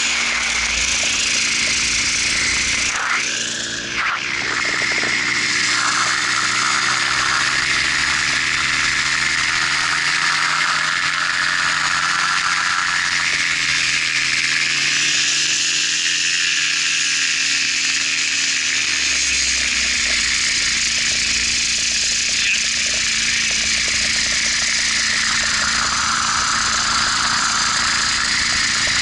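Paramotor trike's engine and pusher propeller running steadily, with wind rushing over the microphone, on the approach to landing. The engine note sags slowly and comes back up in the middle and shifts again near the end.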